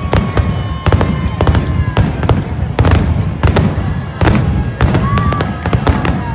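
Aerial fireworks bursting in quick succession: several sharp bangs and crackles a second over a continuous low rumble.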